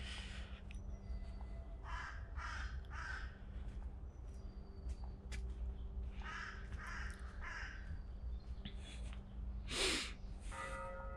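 Crows cawing in short runs of about three harsh calls, with one louder caw near the end. Just before the end a church bell starts ringing.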